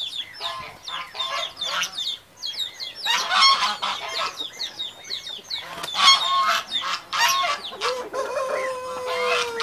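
Índio Gigante chickens squabbling, with many short high-pitched calls in quick clusters. From about six seconds in, a long held bird call with a steady pitch runs to the end.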